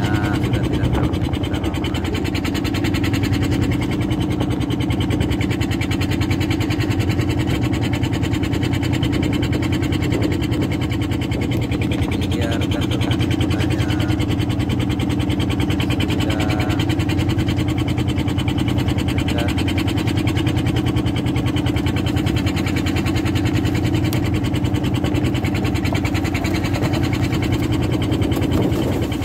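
Engine on a fishing boat running steadily at an even speed, with faint voices now and then.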